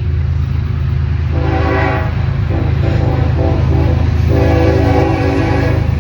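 Union Pacific SD70M diesel locomotive's air horn sounding a horn show: a long chord about a second in, several quick short toots, then another long chord near the end. A steady low rumble runs underneath.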